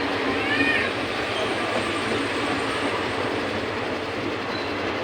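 A train running along the track, a steady noise throughout, with a brief high rising-and-falling tone about half a second in.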